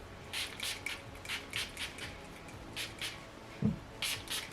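Pump spray bottle of hair primer spritzing onto hair: a string of short hissing sprays, about seven of them in irregular bursts, with a soft thump a little before the end.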